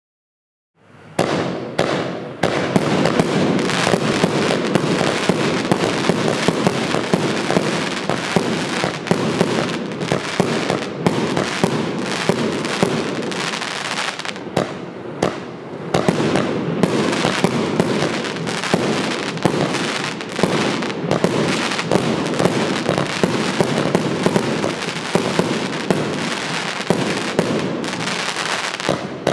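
The 80-shot 'Snowstorm' firework cake firing a fast, continuous barrage of shots and pops. It starts about a second in and briefly thins about halfway through.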